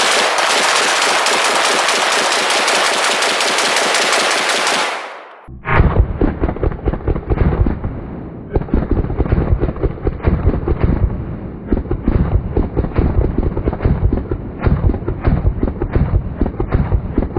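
Several firearms shooting at once: a full-auto 9mm carbine, an AK-pattern rifle and pistols, in a rapid, overlapping stream of shots. About five seconds in the sound drops out briefly. It comes back as a duller, dense run of irregular rapid shots.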